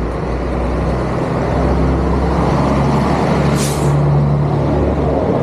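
A road vehicle's engine runs close by as a steady low hum, getting a little louder over the first two seconds. A short, sharp hiss comes about three and a half seconds in.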